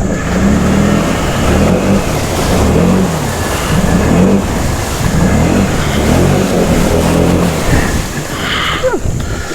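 Can-Am Outlander 650 XMR's V-twin engine revving up and down repeatedly as the ATV churns through a deep, watery mud hole. The revving eases off near the end.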